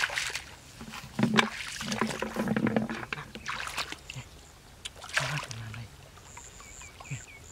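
Shallow muddy water splashing and sloshing as a person steps through it and gropes in it with both hands, in several separate bursts.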